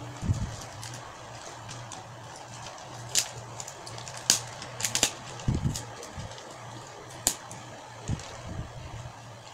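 Paper being handled and opened: scattered short crackles and rustles, with a few soft thumps, over a steady low hum.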